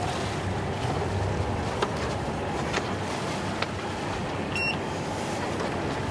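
Sailboat under power: the auxiliary engine running with a steady low hum beneath wind and water noise, with a few light clicks in the middle.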